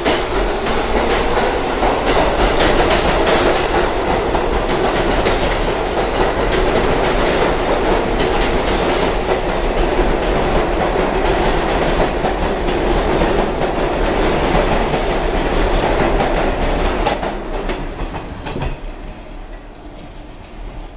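An R62A subway train pulls out of the station and runs past close by: a steady rumble of the cars with wheels clicking over the rail joints. It dies away near the end as the train leaves.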